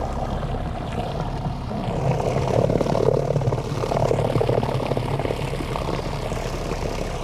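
Electric boat motor running, its propeller churning water in the shallows, getting louder for a few seconds from about two seconds in.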